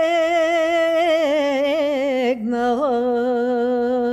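A woman singing a Bulgarian folk song unaccompanied. She holds a long, ornamented, wavering note, breaks off about two seconds in, then holds a second, lower note.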